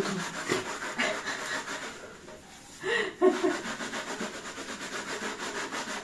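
A soapy sponge scrubbing the plastic water tank of a robot vacuum cleaner in quick, repeated back-and-forth strokes, with a short pause about two seconds in.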